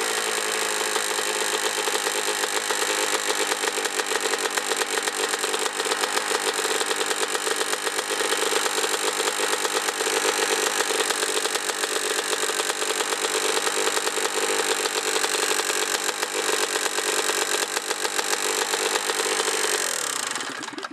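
Honda CR125R's 125 cc single-cylinder two-stroke engine running steadily with a tapping noise from the top end, which the owner suspects is piston slap. The engine is shut off near the end.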